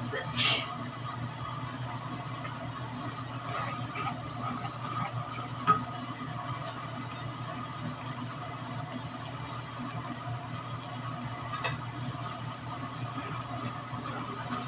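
Peanut sauce simmering and reducing in a pan, with a few faint pops and ticks over a steady low hum. A short hiss comes about half a second in, and a sharp click near six seconds in.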